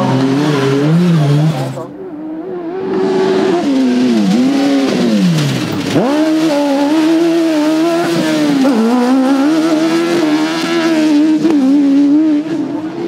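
Autocross buggy's racing engine at high revs on a dirt track, its pitch climbing and falling with throttle and gear changes. About six seconds in it drops low, then shoots straight back up under hard throttle. For the first two seconds another race car's engine is heard before a cut.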